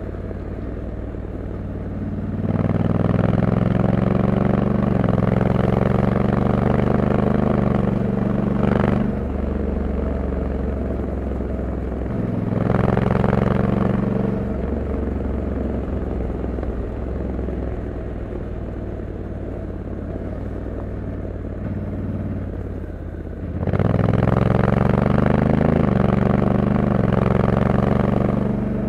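Honda Africa Twin 1100 DCT's parallel-twin engine running under way. It pulls harder three times, at about two and a half, twelve and a half and twenty-three and a half seconds in, rising in pitch each time, and eases back to a quieter, lower steady drone in between.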